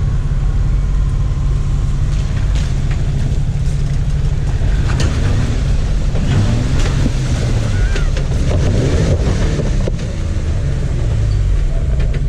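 Off-road vehicle engine running steadily at low revs while crawling over rock, with scattered knocks and scrapes in the middle stretch.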